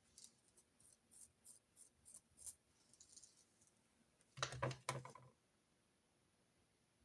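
Quiet desk sounds of note-taking: a run of about eight light ticks over the first two and a half seconds, a brief soft scratch, then a louder short clatter of knocks about four and a half seconds in.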